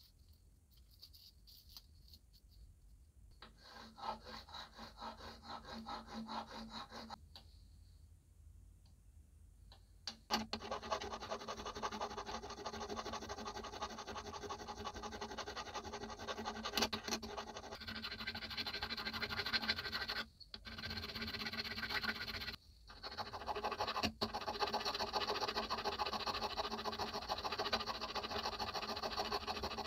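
Rusty metal being scraped and abraded, a steady rasping sound. It comes in two spells: a short one of about four seconds, then a long one from about ten seconds in, with three brief breaks.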